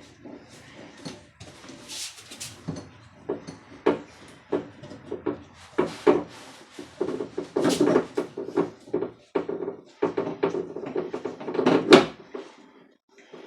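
A screw being driven into a door through a plastic wall anchor: a run of irregular creaks and clicks as it turns, with sharper knocks about two seconds in, around six and eight seconds in, and a loud one near the end.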